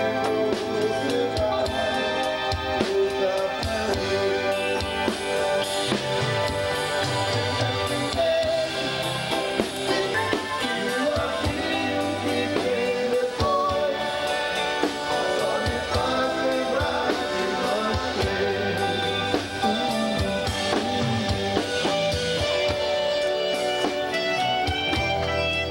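Live dance band playing on stage, with a drum kit keeping a steady beat under melody instruments.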